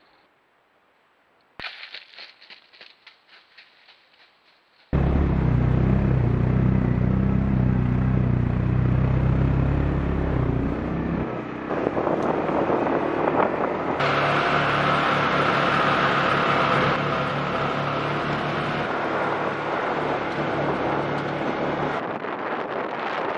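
Quad bike (ATV) engine running loud and close as it drives along, its tone shifting a few times; it comes in suddenly about five seconds in, after a short run of light clicks.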